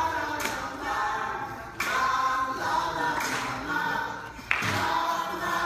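Music with a group of voices singing together, new phrases coming in sharply about two seconds in and again near the end.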